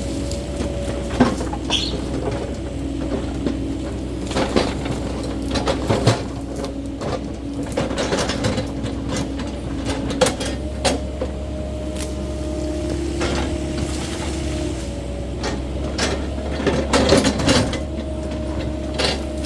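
Cat 308E2 mini excavator working: its engine runs steadily under a shifting hum, with repeated knocks, cracks and clanks as the machine clears brush and ground, the busiest run near the end.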